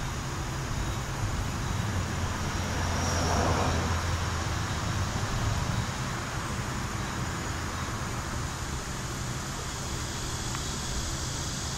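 Steady rumbling noise like distant road traffic, swelling for a couple of seconds about three seconds in.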